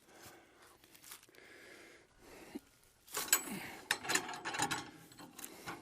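A log being worked onto a sawmill bed by hand: irregular scraping and rubbing of wood with sharp clicks and knocks, mostly in the second half.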